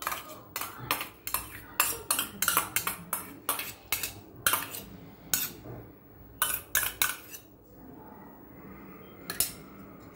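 Stainless steel bowl of curd being knocked and scraped to empty it into a mixing bowl: a quick run of sharp metal clinks and clatters, a pause, then a few more near the end.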